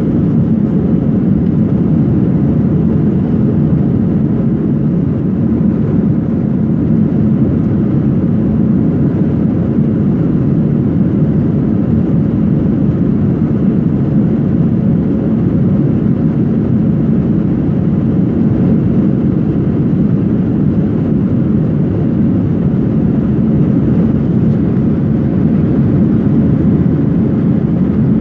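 Cabin noise of an Airbus A321-200 climbing after take-off, heard from a window seat behind the wing: the engines and rushing air make a steady low rumble with a faint constant hum on top.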